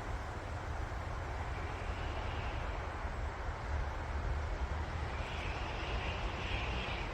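Wind blowing through forest trees: a steady rustle of leaves over a low rumble, the rustle brightening in a gust about five seconds in.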